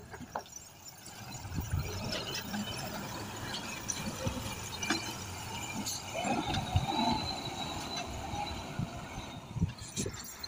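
Heavily overloaded truck crawling over a rough rocky track: scattered knocks and creaks from the loaded body, with a wavering squeal a little past the middle.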